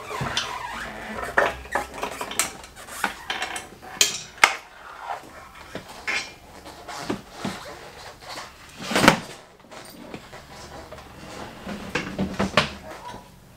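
Irregular metallic clanks and knocks from a moped being taken apart by hand as its frame is lifted off the engine. The loudest knock comes about nine seconds in.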